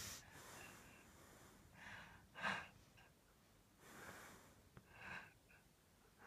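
Snoring: a run of faint, noisy breaths, the loudest and sharpest about two and a half seconds in.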